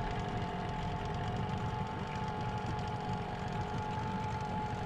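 Boat motor running steadily under way, a low rumble with a thin, even whine over it.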